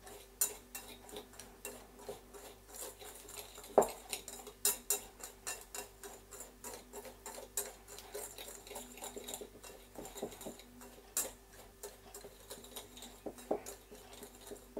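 Metal spiral whisk stirring a dry spice mix of brown sugar, salt and paprika in a glass bowl: a quick, irregular run of light ticks and scrapes of wire against glass, with one sharper click about four seconds in.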